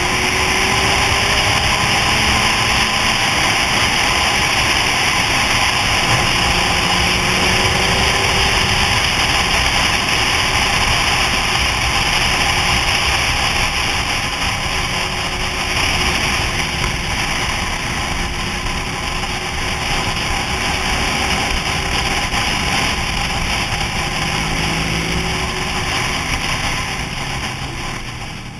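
Motorcycle riding at road speed, heard from a helmet-mounted camera: steady wind rush over the microphone with the bike's engine running underneath, its pitch drifting a little with the throttle.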